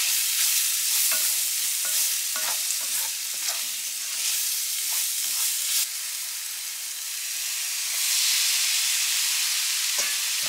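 Vegetables and sausage sizzling in a stainless steel frying pan, with a spatula scraping and clicking against the pan as it stirs. About eight seconds in, the sizzle grows louder.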